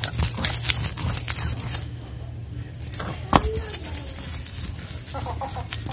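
Stone roller of an Indian sil-batta grinding stone being rolled back and forth over the flat stone slab, grinding a wet tamarind-chilli chutney paste. Stone scrapes on stone with irregular clicks and knocks.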